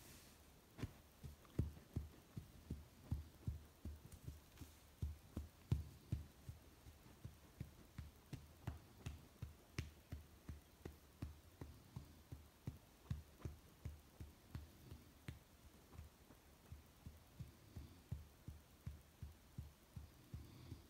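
Hand patting a sleepy border collie in a slow, steady rhythm: soft, dull thumps about two or three a second, to settle him to sleep.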